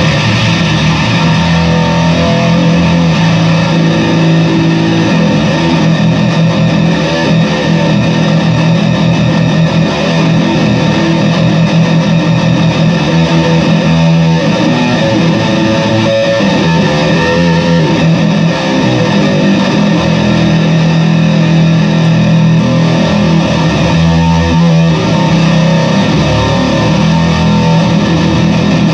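Fender Squier VI six-string bass played continuously through a fuzz pedal, giving a thick, heavily distorted tone with a strong held low note under the playing.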